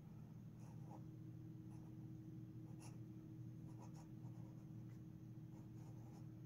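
Faint scratching of an extra fine Jowo fountain pen nib writing on paper, in short irregular strokes. The nib gives soft feedback and is not scratchy.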